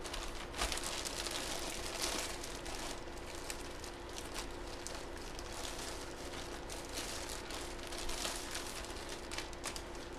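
Plastic packaging crinkling and rustling as it is handled, in many small irregular crackles, over a faint steady electrical hum.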